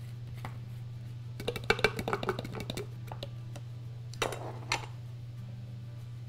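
Metal blade base being unscrewed from a glass grinder jar: a run of quick clicks and rattles, then two brief clatters, over a steady low hum.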